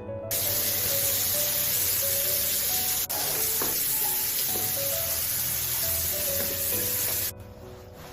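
Food sizzling in a hot pan: a loud, steady hiss that starts abruptly, breaks off for an instant about three seconds in, and stops suddenly near the end, with background music underneath.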